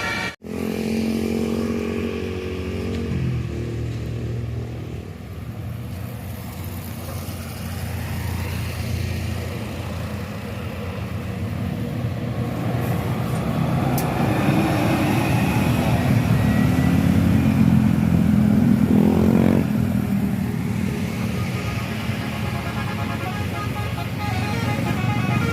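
Passing road traffic: engines of vehicles going by, swelling as one comes close, with an engine revving up in a rising sweep about nineteen seconds in.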